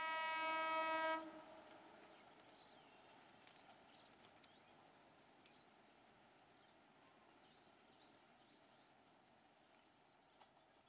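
WDM-3A diesel locomotive's horn holding one steady blast that cuts off a little over a second in, followed by faint ambient noise as the train approaches.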